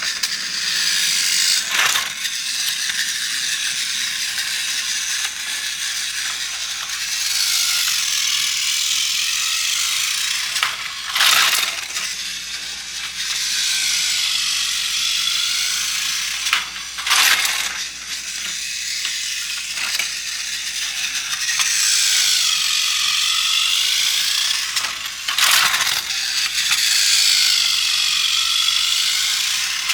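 Plarail battery-powered toy train running on plastic track: its small motor and gears give a steady rattling whir, with brief louder swells every several seconds as it works its way around the layout.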